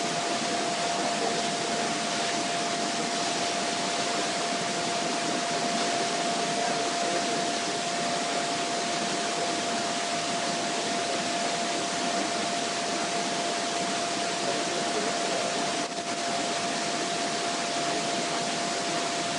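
Steady rushing hiss of a homemade soda-can alcohol stove burning with a ring of blue jet flames under a covered pot of water nearing the boil, with a thin steady tone held at one pitch over it. A brief click near the end.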